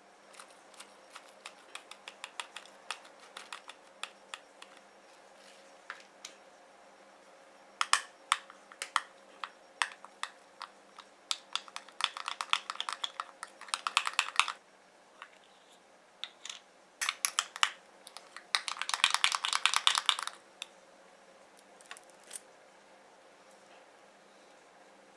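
Metal spoon clicking against a small glass bowl while a little batter is stirred. There are scattered single taps at first, then two spells of quick, rapid clinking.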